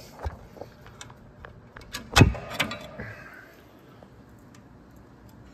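Metal tools clicking and knocking on the parking-brake shoe hold-down spring and pin of a drum brake, with one sharp metallic knock a little over two seconds in and a lighter one just after.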